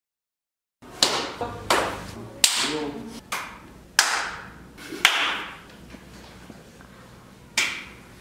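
Single hand claps, about six, spaced irregularly about a second apart, each echoing briefly, with a short bit of voice after the third.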